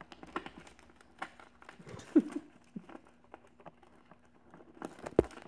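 Mylar foil pinwheel petals crinkling and rustling between the fingers as they are worked onto the pinwheel's center pin, with scattered small clicks. A short louder sound about two seconds in and a sharp tap near the end.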